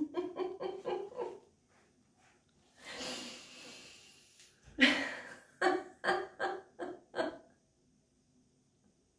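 A woman doing deliberate laughter-yoga laughing, ho-ho-ha-ha-ha, in quick rhythmic bursts, then a long breath about three seconds in, then another run of short laughs that stops about seven seconds in.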